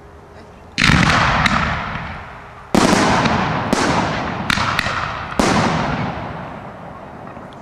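Fireworks bursting overhead: three loud bangs about two seconds apart, with a few smaller sharp reports between them, each bang trailing off in a long fading crackle and echo.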